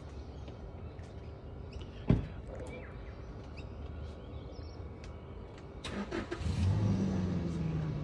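A single sharp thud about two seconds in, like a vehicle door shutting, then near the end a ute's engine starts and runs with a steady low note.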